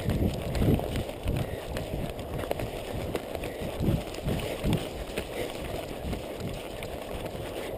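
Footfalls of a runner crossing low forest undergrowth, picked up by a chest-mounted camera: irregular thuds a fraction of a second apart over a steady rustle of shrubs brushing past.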